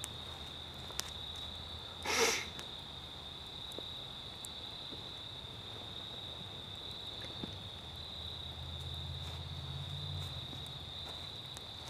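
Evening insect chorus: a steady, unbroken high-pitched trill. A brief rustle stands out about two seconds in, and a low rumble swells near the end.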